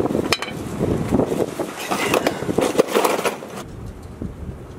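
Irregular metal knocking and rattling from hand work on a pickup's exhaust at its hangers as the exhaust is freed and let down. The clatter stops a little over halfway through.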